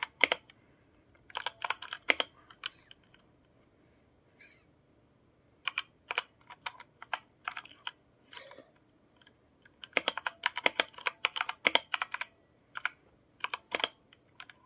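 Keys being typed on a new Redragon Fizz mechanical keyboard to test it: quick runs of sharp key clicks in several bursts with short pauses between them, the longest run about ten seconds in.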